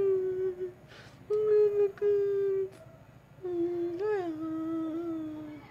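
A voice humming long held notes in four short phrases with brief gaps between them; the last phrase is the longest and slides slightly lower.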